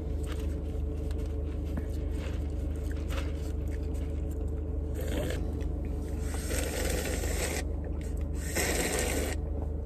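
Drinking through a plastic straw from a large cup, with noisy slurping bursts about halfway through and again near the end, over the steady low hum of a car cabin.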